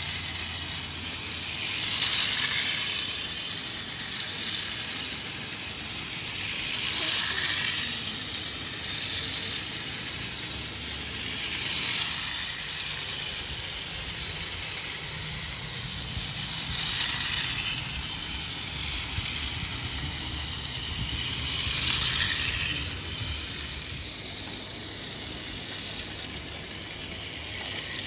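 Battery-operated toy train running round a plastic track: its small electric motor and gears whirring and its wheels clattering on the rails. The sound swells about every five seconds.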